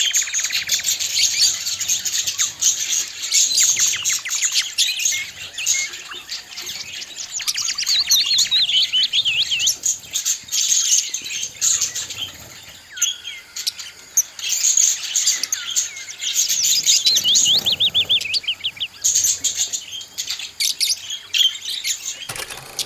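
Budgerigars warbling and chattering: a continuous run of rapid chirps, trills and quick up-and-down whistled notes, with a few short pauses.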